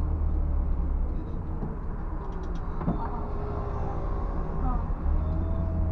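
Scania coach's diesel engine running with a low drone, heard from inside the driver's cab as the bus drives along. The drone eases for a few seconds and comes back stronger near the end, with a few light clicks and rattles from the cab.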